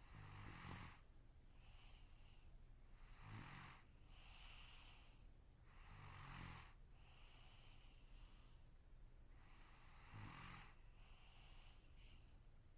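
A sleeping person snoring faintly: four short, low rattling snores about three to four seconds apart, with a softer breathy hiss of breath between each.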